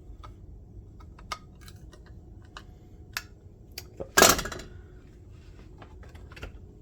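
Light metallic clicks and clinks of a screwdriver and screws being handled, with one louder clattering rattle about four seconds in.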